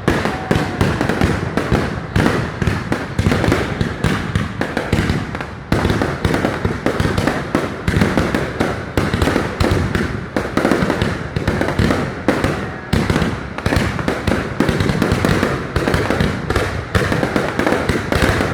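Fireworks display bursting in a dense, continuous barrage, many sharp bangs and crackles each second with no break.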